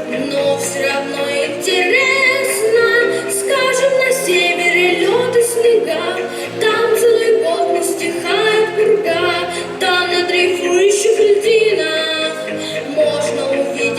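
A song: a singing voice with a melody that rises and falls, over sustained low instrumental notes.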